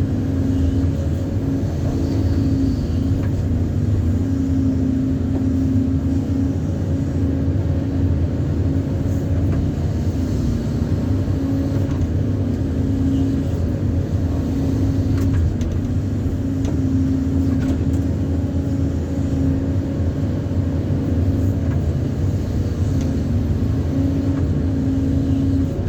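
A large engine running steadily at an even speed, a deep, unchanging drone.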